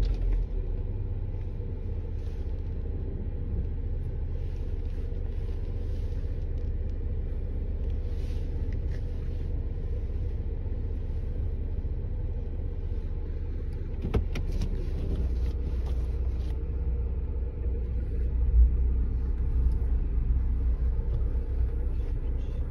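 Car driving, heard from inside the cabin: a steady low road and engine rumble, with a sharp click about fourteen seconds in and a thump a few seconds later.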